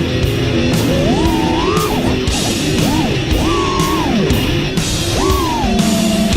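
Heavy metal music with distorted guitar and a steady drum beat, a lead line sliding up and down in pitch over it.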